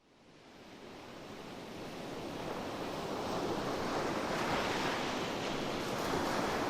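A steady rushing noise, like surf, fading in from silence over the first few seconds, then holding level.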